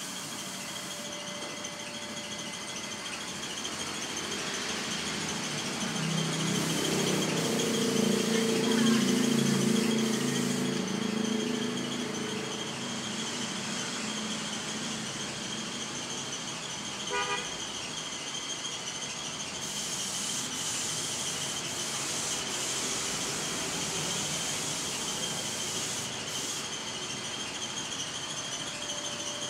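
Compressed-air spray gun hissing steadily as it sprays white epoxy primer. About six seconds in, a louder low drone made of several tones swells and fades over about six seconds, and a brief rattling pulse comes near the middle.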